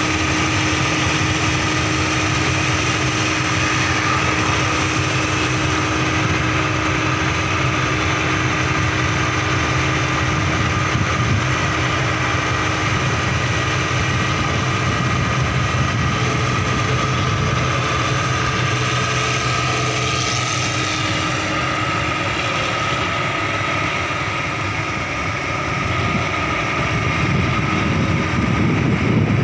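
Combine harvester's engine and threshing machinery running steadily with a constant hum while it cuts ripe rice.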